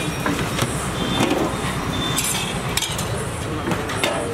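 Metal serving utensils clinking and scraping against the rims of large metal cooking pots as food is dished out, a few separate sharp clinks over a steady background noise.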